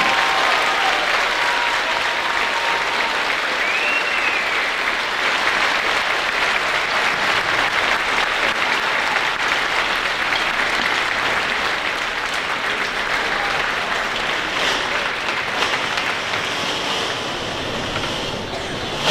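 Audience applauding, a long, steady round of clapping that eases off slightly near the end.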